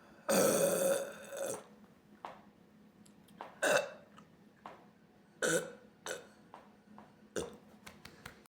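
A woman burping: one long, loud burp of about a second near the start, followed by several shorter burps spaced a second or two apart.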